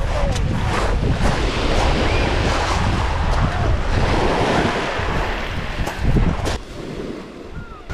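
Small waves washing onto a shingle beach, under heavy wind buffeting on the microphone, with a few short sharp crunches. The wind rumble eases about six and a half seconds in.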